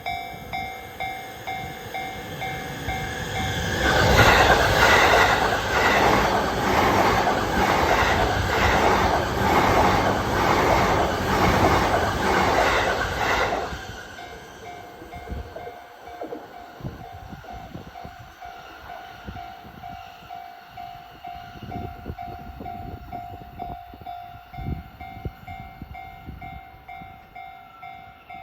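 Japanese level-crossing warning bell ringing steadily, about one and a half rings a second. A Keihin-Tohoku Line electric commuter train passes loudly from about four seconds in to about thirteen seconds, its wheels clattering over the rail joints, and then fades to faint low knocks while the bell keeps ringing.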